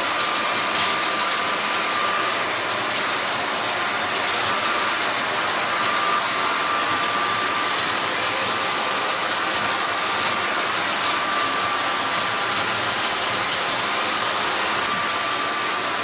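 Onson A10 Pro cordless vacuum in handheld mode, running steadily on its high-power setting while sucking up oatmeal and dry cereal. The debris rattles through the nozzle into the dustbin as a scatter of fine ticks over the motor and airflow noise, and a faint thin whine comes and goes.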